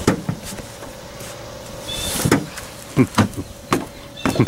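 Scattered hollow knocks and thumps, about half a dozen at uneven intervals, of someone stepping and bumping about in a small boat, over a faint steady hum.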